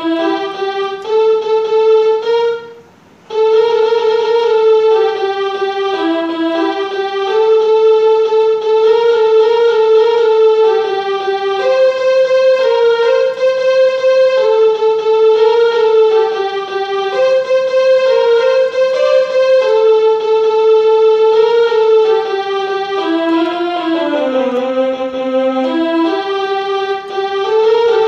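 Electronic keyboard playing the melody of a school anthem in long, held notes with a sustained tone, with a short break about three seconds in.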